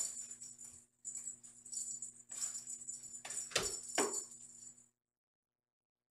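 Kitten batting a toy ball that jingles and rattles, in uneven bursts, with two sharper knocks of the toy about three and a half and four seconds in.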